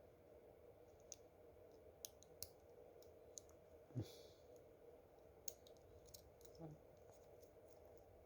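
Faint, scattered small clicks of a hand tool working the sliding latch of a smartwatch's touch-panel ribbon connector, about seven in all, with one slightly louder tap about four seconds in.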